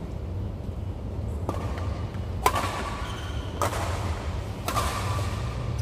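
Badminton rackets striking a shuttlecock in a doubles rally: four sharp hits about a second apart, each echoing in a large hall, over a steady low hum.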